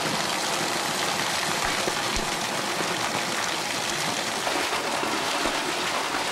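Warm spring water pouring from spouts and splashing steadily into a stone bathing pool.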